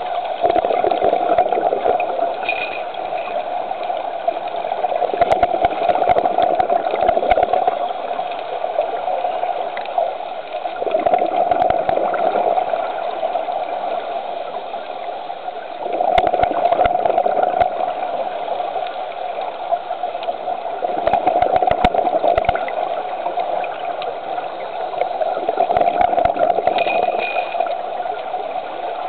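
Scuba diver breathing underwater through a regulator: gurgling rushes of exhaled bubbles with crackling pops, about every five seconds, with quieter stretches between.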